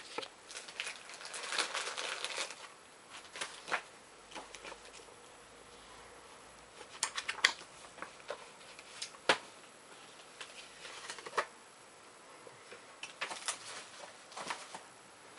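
Plastic packaging and paper rustling and crinkling as items are handled, with scattered sharp clicks and taps; the longest rustle comes about two seconds in.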